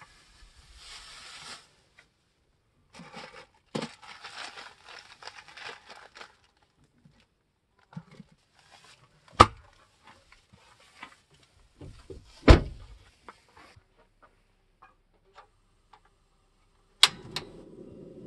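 Rustling and crinkling of something being handled, with two sharp, loud knocks about three seconds apart. A steady low rumble starts with a click near the end.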